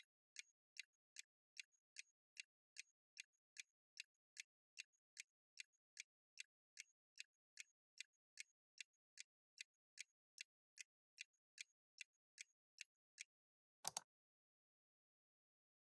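Faint clock-like ticking sound effect keeping time with an on-screen countdown timer, about two and a half ticks a second; it stops about thirteen seconds in. A moment later comes a quick double click as the answer is selected.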